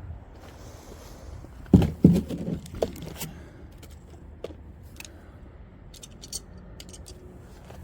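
Tools and parts being handled and set down: two loud clunks about two seconds in, then about a second of light clattering, with a few faint clicks later.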